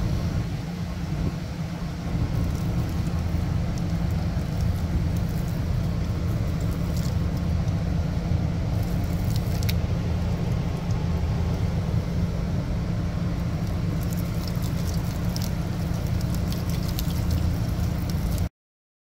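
Steady low engine rumble with a constant low hum, and scattered light ticks and taps, most of them in the second half. The sound cuts off suddenly near the end.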